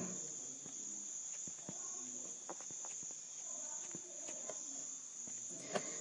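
Quiet background with a steady high-pitched buzz and a few faint, scattered ticks.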